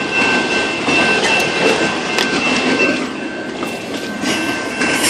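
Freight train cars rolling past at a grade crossing, wheels clacking over the rail joints, with a steady high-pitched tone that fades about three seconds in.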